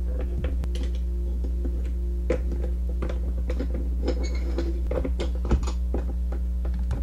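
Irregular light clicks and taps of plastic Littlest Pet Shop figures and toy furniture being handled, the sharpest about five and a half seconds in, over a steady low hum.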